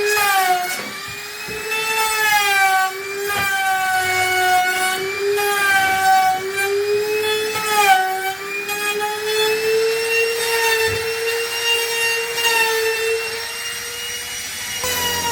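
Handheld electric woodworking power tool running with a high whine, its pitch sagging and recovering again and again as it cuts into wood under load, holding steadier for a few seconds in the second half.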